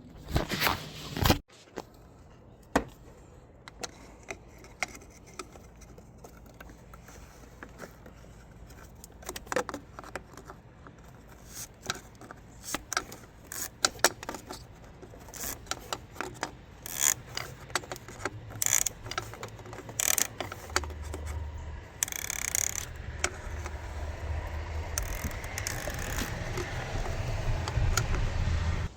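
Metal tools and parts clinking, clattering and scraping as they are handled, in scattered sharp clicks with a louder burst in the first second or so. A low rumbling scrape builds over the last ten seconds.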